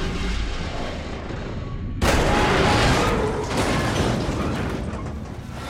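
Cinematic sound effects of a pickup truck being flung through the air: a dense, deep rumbling crash that fades, then a second sudden loud burst about two seconds in that rumbles down again.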